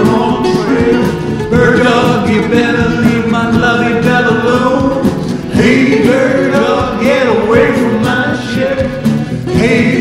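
Country rock-and-roll song playing: a sung vocal over instrumental backing.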